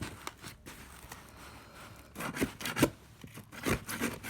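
Cardboard box and packing material being handled by hand: quiet at first, then irregular rustling and scraping from about two seconds in.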